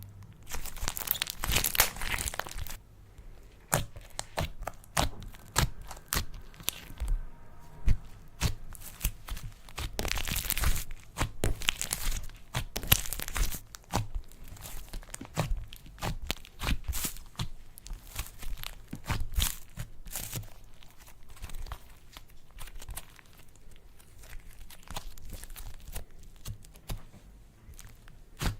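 Slime being squeezed and stretched by hand, giving irregular sticky crackles and pops, with louder bouts of crackling about a second in and again about ten seconds in.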